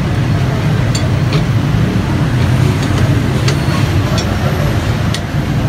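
A steady low rumble, with scattered light metallic clicks as a T-handle socket wrench works the head bolts of a small electric water pump.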